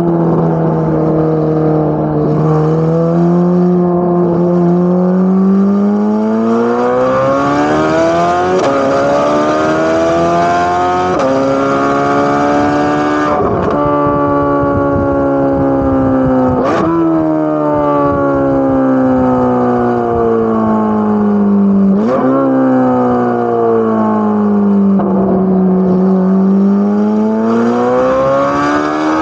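Corvette C8 Z06's naturally aspirated flat-plane V8 running under load, its pitch climbing and falling slowly over several seconds as the car speeds up and slows, with a few sharp gear changes where the note jumps.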